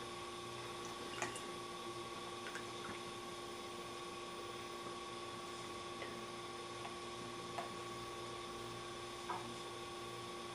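Steady faint hum with a handful of soft, scattered clicks from small metal parts being handled while the cover of a carburetor-mounted vacuum fuel pump is taken off.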